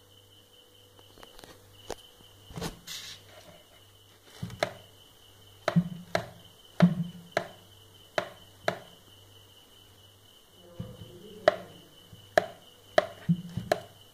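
About a dozen sharp clicks and light knocks at irregular intervals, bunched in the middle and again near the end, over a faint steady high whine and a low hum.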